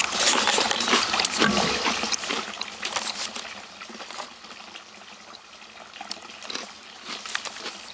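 Paper snack cup and its lid rustled and crinkled as a chocolate-covered potato chip is taken out, loudest in the first couple of seconds, then a few small crunches as the chip is bitten, over a steady trickle of running water.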